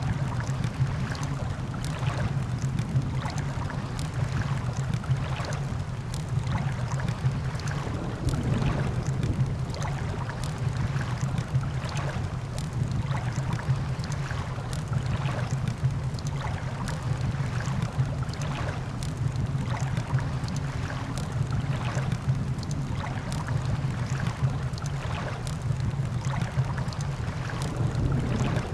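Ocean surf washing steadily under a crackling campfire, with frequent short sharp pops at irregular intervals.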